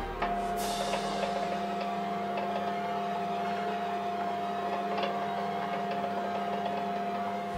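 Benchtop mini lathe running at a steady speed, its motor giving an even hum with a high whine over it.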